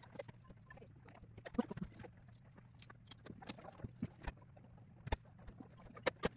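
Irregular light clicks and taps of small thin plywood model-kit parts being handled and set down on a wooden tabletop, over a low steady hum.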